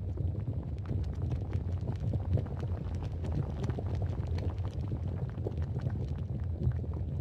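Volcano sound effect: a steady deep rumble with many small scattered crackles and knocks over it.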